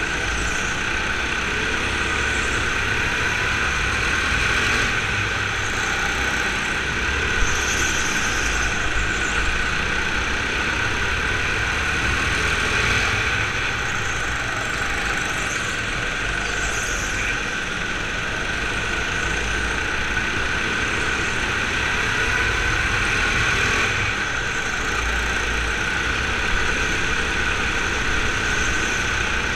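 Onboard sound of a racing go-kart lapping an indoor track: its motor running steadily over a constant low rumble, with a few faint rising tones as it accelerates out of corners.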